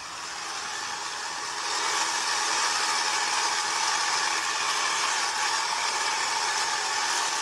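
Diesel tractor engine running hard at full throttle, picked up by a phone recording on the moving tractor. It builds over the first two seconds, then holds a steady, loud, rattly drone.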